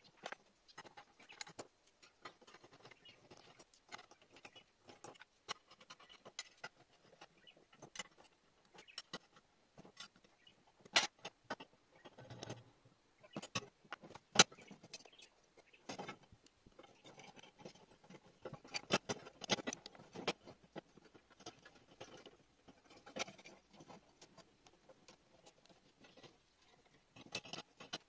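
Steel flat bars, a steel rod and a file being handled and set down on a wooden workbench: irregular light clicks and knocks of metal on metal and on wood, with a sharp single knock about halfway through and a busier run of clatter a little later.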